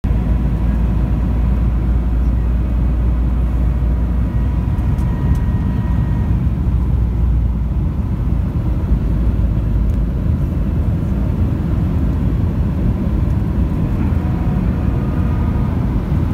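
Jet airliner cabin noise on approach to landing with the flaps extended: a loud, steady low rumble of engines and rushing air heard from inside the cabin, with a faint steady whine above it.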